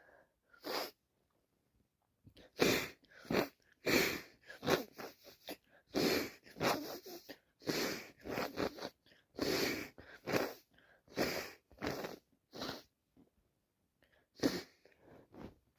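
A woman sneezing and sniffing over and over during an allergy attack: a rapid run of short, sharp bursts of breath through the nose, with a brief pause near the end before a few more.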